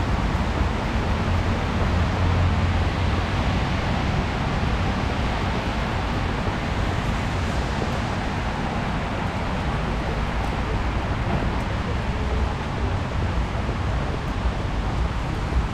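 Steady city road traffic in the rain: a constant rushing noise with a strong low rumble and no distinct events.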